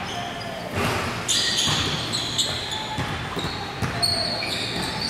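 Basketballs bouncing on an indoor court: irregular thuds with short high squeaks, echoing in a large gym hall.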